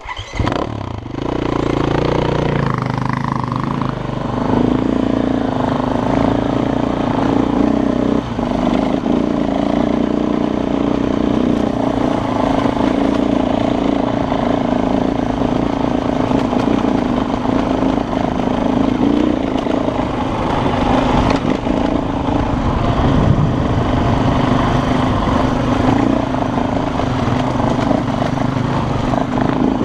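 Dirt bike engine cutting in suddenly and then running steadily as the bike is ridden along, its revs rising and falling a little.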